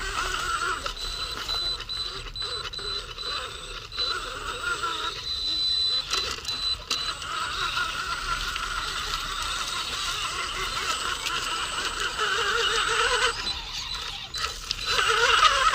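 Electric motor and gearbox of an RC crawler truck whining as it drives, the pitch wavering with the throttle, with short pauses about halfway through and again near the end.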